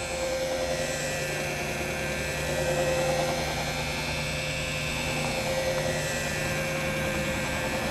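Corded electric polishing machine running steadily as it buffs wax on a glider's fiberglass gel coat, under its own weight with no added pressure; a steady hum whose pitch wavers slightly near the middle.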